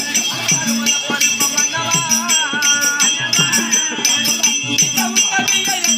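Live folk-theatre music with a steady, evenly repeating beat and a wavering melody, under the jingling of dancers' ankle bells.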